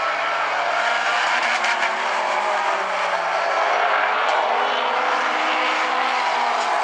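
A pack of Bumblebee-class race cars running at speed in a heat race, several engines at once, their pitches rising and falling as they lap the track.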